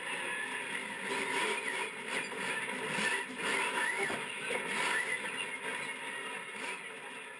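Monster truck engine running during a freestyle run, heard from inside the cab, fading out near the end.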